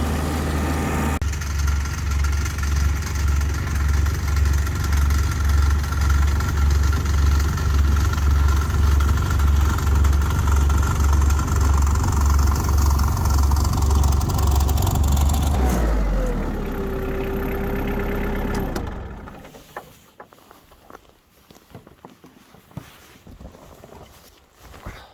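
An engine runs with a steady low pulsing, then drops and winds down with a brief falling whine, and stops about 19 seconds in. Afterwards only faint small clicks and knocks remain.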